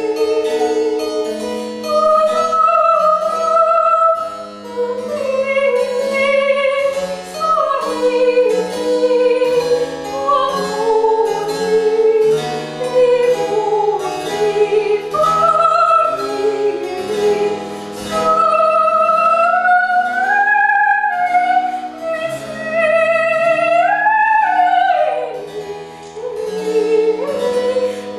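A soprano singing a slow Baroque opera aria with vibrato, accompanied by a harpsichord.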